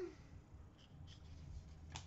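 Faint handling of trading cards: soft rustles as a card is held up and laid down on the stack, with a light click near the end, over quiet room tone.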